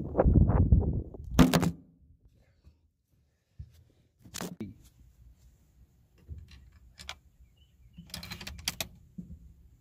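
Handling noises from the rifle and gear on the rest: a rumbling rustle, then a single sharp knock about a second and a half in. After a short silence come scattered clicks and knocks, with a quick cluster of them near the end.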